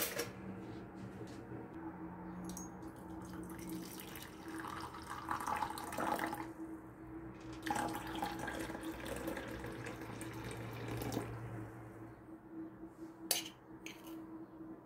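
Water poured from a glass kettle into a porcelain teacup for several seconds, starting about four seconds in, over a steady low hum. A couple of sharp clicks near the end.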